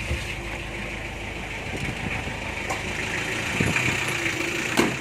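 Vehicle engine idling steadily, with a few light clicks and a sharp knock near the end.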